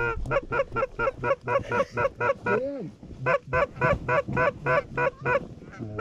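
Canada goose honks and clucks in a fast, even series of short notes, about four or five a second, in two runs of about two seconds each with a lower sliding moan between them.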